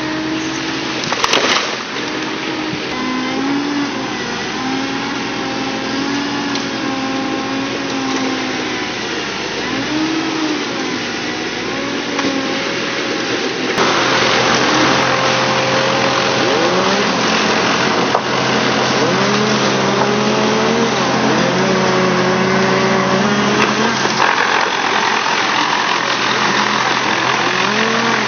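Engine of a wood chipper running under changing load, its pitch sagging and recovering again and again as material is fed through. There is a sharp knock about a second in, and about halfway through a louder, harsher noise sets in and carries on.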